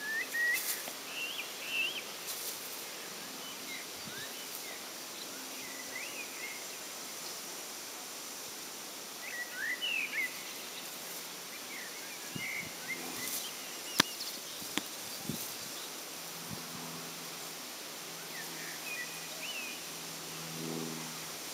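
Outdoor garden ambience: a steady background hiss with small birds chirping now and then in short, quick calls. One sharp click past the middle and a faint low hum near the end.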